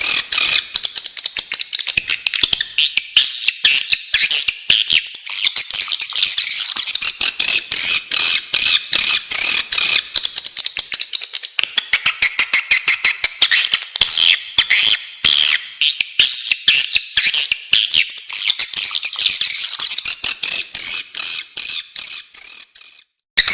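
Recorded swiftlet calls: a dense, rapid twittering of many high chirps and clicks, played as a lure to draw swiftlets into a nesting house. It fades out near the end and stops briefly.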